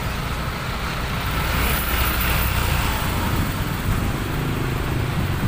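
Motorcycle riding in city traffic: the bike's engine running under a heavy, unsteady low rumble, with the road and traffic noise around it.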